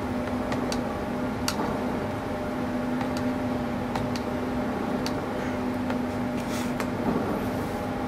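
Light, irregular clicks and taps, about a dozen, from the power adapter's cable being flexed and wiggled at the Imax B6 charger's DC barrel jack to test a repaired intermittent connection, over a steady low hum.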